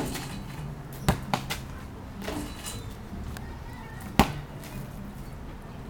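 A basketball hitting the backboard and bouncing on a concrete patio: a sharp thud at the start, three quick bounces about a second in, and the loudest impact about four seconds in.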